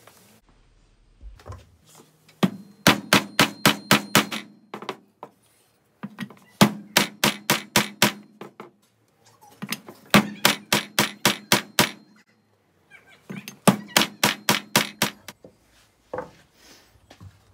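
A hammer striking a wooden block in four bursts of quick blows, several a second, tapping a part home in a Vittorazi Atom80 reduction gearbox case.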